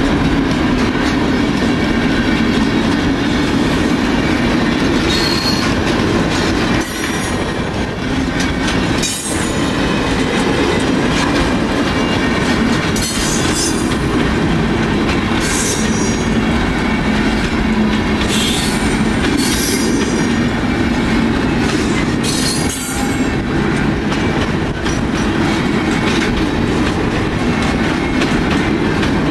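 Freight wagons, covered grain hoppers and then boxcars, rolling steadily past on the rails with a continuous wheel rumble and clatter. Short high-pitched wheel squeals cut through it every few seconds.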